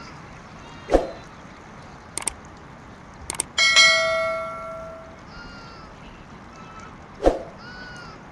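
A metal bell-like ring, struck once about three and a half seconds in and fading over a second or so, with sharp knocks before and after it. Short high-pitched calls come and go in the background.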